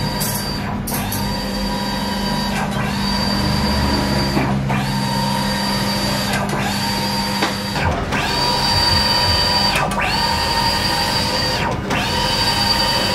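Mimaki wide-format inkjet printer printing on vinyl: the print-head carriage travels back and forth with a steady motor whine, about seven passes of roughly two seconds each, with a short click and pause as it reverses at each end.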